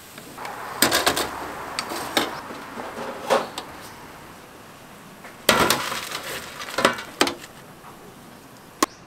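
Kitchen utensils and dishes clattering: irregular clinks and knocks in clusters over a steady hiss. The loudest burst comes about five and a half seconds in, and a single sharp click falls near the end.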